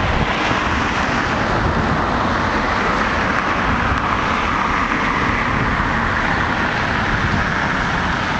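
Steady rush of road traffic noise, swelling a little partway through.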